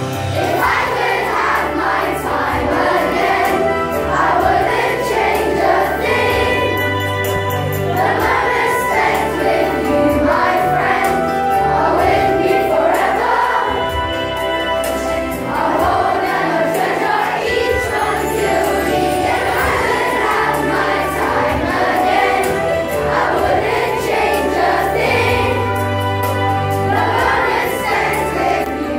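A large group of children singing together over a recorded backing track with a steady bass line.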